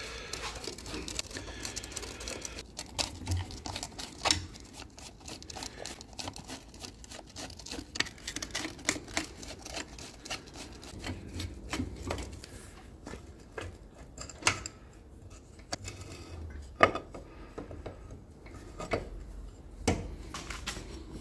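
Irregular metal clicks, taps and clinks of hand work on a Minsk motorcycle engine's side cover, its bolts already out, as the cover is worked off. A sharper knock stands out about three-quarters of the way through.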